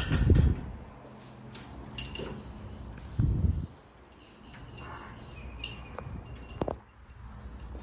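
Loose metal bolts handled on a workbench, clinking several times with short, high ringing notes. Two dull thumps, the louder one at the start and another about three seconds in.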